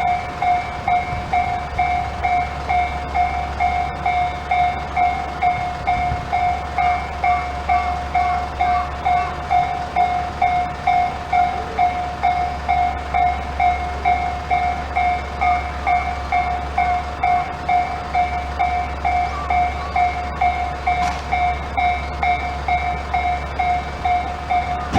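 Tōjō-type electronic level-crossing alarm ringing in steady, evenly spaced strokes, about two a second, signalling a train approaching or passing.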